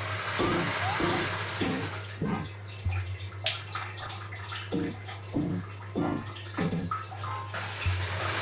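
Alexandrine parrot bathing, splashing water in short repeated bursts about twice a second over a steady low hum.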